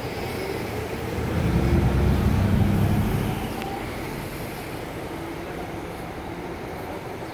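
Outdoor street background noise with a low rumble that swells about a second in and fades after a couple of seconds.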